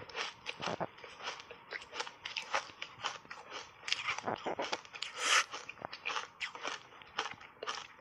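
Refrozen block ice coated in matcha powder being bitten and chewed close to the microphone: a dense run of irregular crunches and cracks as the ice breaks between the teeth.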